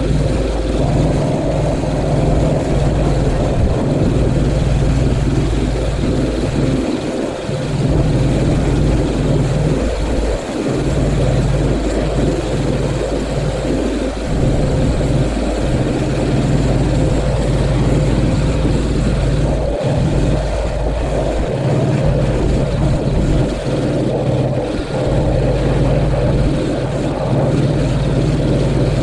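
Pressure washer running steadily: a constant motor drone with the hiss of the water spray over it.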